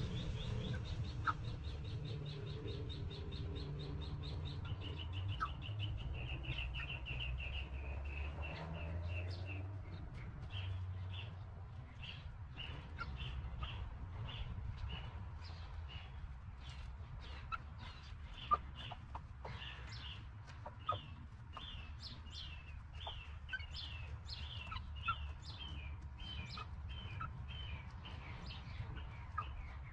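Backyard chickens: older chicks peeping over and over in short falling calls, with a hen's low clucking in the first few seconds. A fast, even, high trill runs for the first five seconds, and a few sharp taps come from the birds pecking at feed.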